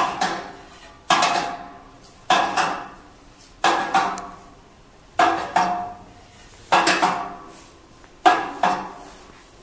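The turning carousel of a manual heavy-duty screen printing press clanks as it is spun by hand. Ringing metal clanks come at a steady pace, about one every second and a half, and each is followed quickly by a smaller second knock as a station passes.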